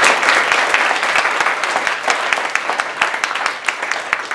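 Audience applauding: many hands clapping at once, the applause gradually thinning and fading toward the end.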